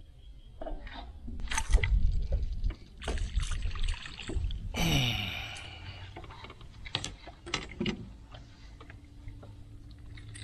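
Water splashing and knocking as a hooked crappie is landed into the boat, loudest in the first half. Scattered clicks follow, with a faint steady hum near the end.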